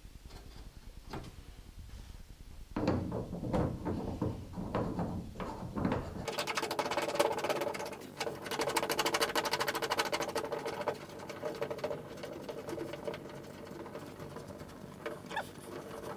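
Hand rubbing and scraping sealer around a plastic through-hull fitting against an aluminium boat hull: scattered scrapes and knocks at first, then a fast, even rattling scrape from about six seconds in.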